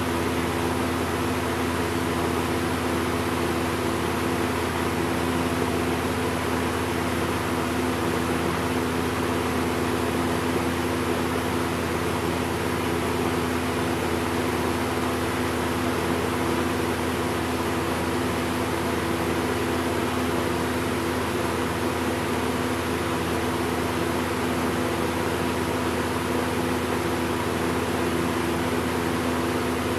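1992 Lakewood Model 200 20-inch box fan running steadily: an even rush of air with a low motor hum under it.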